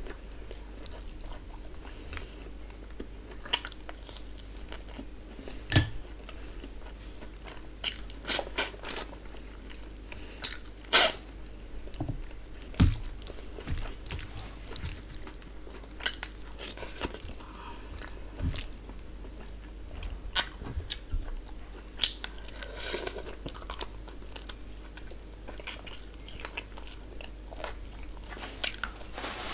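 Close-miked eating sounds of rice and mutton curry eaten by hand: chewing with irregular wet smacks and clicks of the mouth, and squelches of fingers working rice and gravy on the plate.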